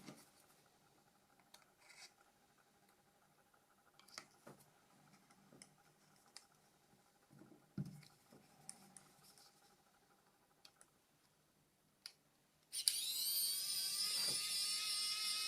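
Faint clicks and taps of small plastic and metal parts of a Nokia E90 being handled and pried during disassembly. About thirteen seconds in, a much louder steady whine starts, rising in pitch as it begins and then holding level.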